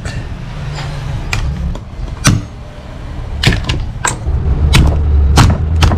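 Sharp cracks and taps, one roughly every half second to second, of boiled mud crab shell being broken open and handled on a plastic cutting board. A low rumble builds underneath from about four seconds in.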